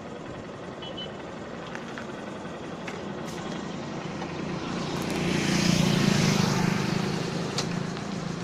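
A motorcycle passes close by, its engine and tyre noise swelling to a peak about six seconds in and then fading as it rides away, over a steady low rumble of distant traffic.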